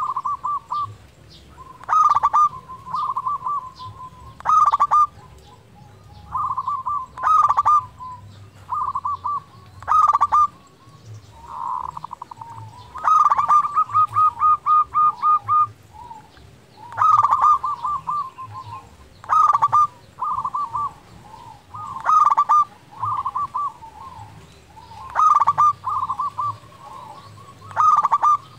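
Zebra dove (perkutut) cooing: a phrase of quick staccato coo notes repeated every two to three seconds, about eleven times, with a longer run of rapid notes about halfway through.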